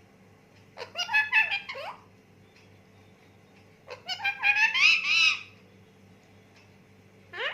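Pet parrot vocalising in two bursts of high, chattering calls with pitch glides, about a second in and about four seconds in, then a short rising call near the end.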